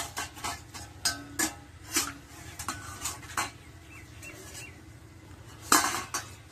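Metal spoon clinking and scraping in a steel bowl, a string of irregular clinks with the loudest a little under six seconds in.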